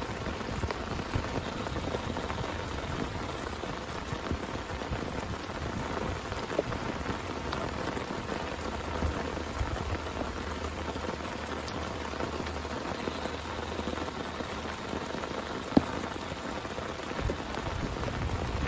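Steady rain falling, an even patter with scattered louder drops striking close by; one sharp drop stands out near the end.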